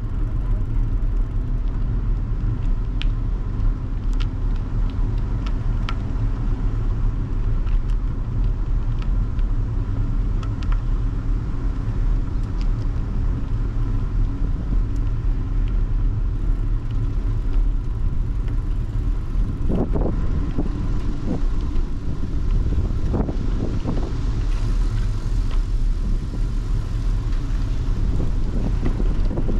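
Steady low rumble of wind buffeting the microphone on a moving bicycle, mixed with road noise, with light clicks here and there.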